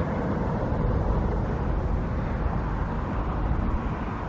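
Steady low outdoor rumble with no distinct events, the vehicle-like background noise of an open site.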